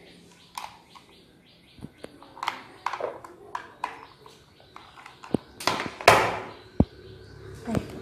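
Plastic clicks and knocks from handling a toy remote control: its battery cover snapped shut and the remote turned over and set down on a tabletop, with one louder rustle about six seconds in.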